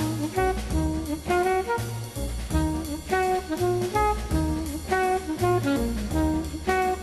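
Instrumental jazz music: a melody over a steady, pulsing bass beat, about two beats a second.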